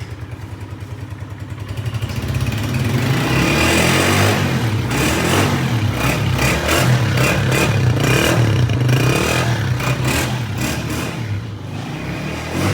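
Honda CG125's single-cylinder four-stroke engine idling with an even putter, then revved up about two seconds in and held at higher revs with repeated blips of the throttle, easing back down near the end.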